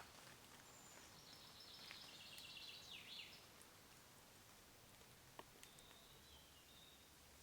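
Faint songbird: one trilled phrase of quick repeated high notes ending in a falling sweep, about two seconds in, with a fainter call near the end, over quiet woodland background hiss and a couple of soft clicks.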